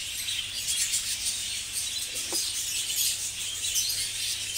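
Many budgerigars chattering at once in a breeding aviary, a dense, continuous high-pitched twitter.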